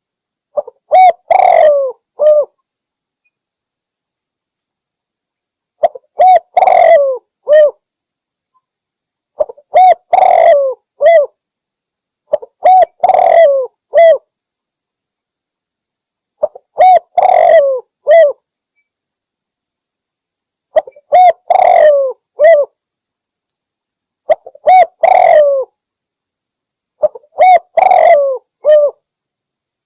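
Spotted dove (Javan derkuku) cooing: a phrase of several rounded coos, the last note set slightly apart, repeated eight times about every three to four seconds.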